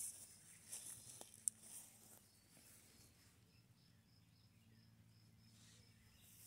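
Near silence outdoors: faint rustling in the first couple of seconds and one sharp click about a second and a half in, then faint, evenly repeated high chirps.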